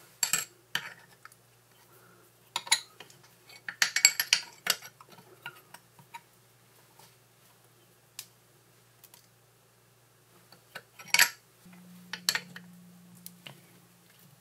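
Steel open-end spanner clinking against a nut and steel washer as a bolt is fitted and tightened: scattered sharp metal clicks and taps, with a quick run of them about four seconds in and a single louder clink about eleven seconds in.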